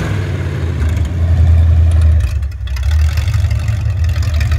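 Ford 302 Windsor V8 running on an engine test stand through open headers with no mufflers: a steady low rumble that goes quieter for a moment about halfway through, then picks back up.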